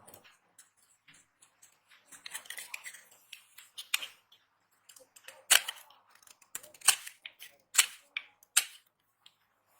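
Dry bar soap being cut: a stretch of crumbly scraping, then about five crisp cracks a second or so apart as the blade snaps through the soap.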